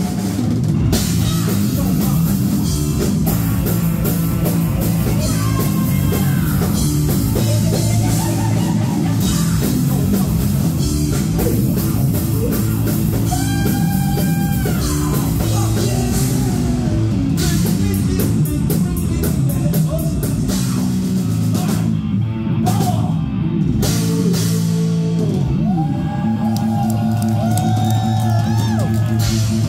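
A heavy metal band playing live and loud: distorted electric guitar and electric bass over a drum kit, with lead guitar lines bending in pitch.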